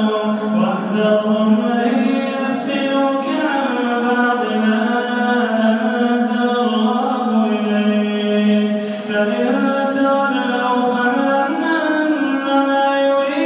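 A man reciting the Quran in a slow melodic chant (tajweed), drawing out long held notes that bend gently in pitch, with a brief breath about nine seconds in.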